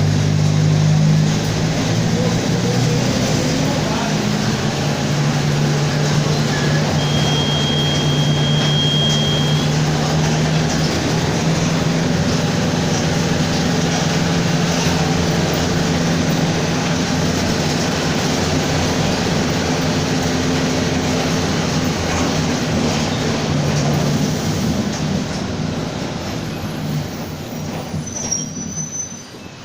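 Mercedes-Benz OF-1722M city bus under way, its diesel engine and driveline giving a steady low drone, with the driveshaft growl the bus is known for. A brief high whistle comes about a quarter of the way in, and the drone fades in the last few seconds.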